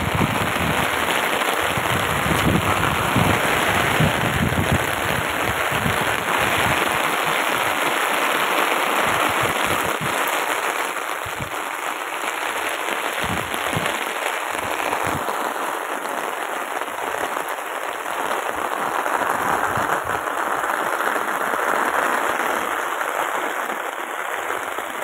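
Heavy rain pouring steadily onto a rooftop terrace, with close, crackly drop hits on pots, leaves and the flooded floor.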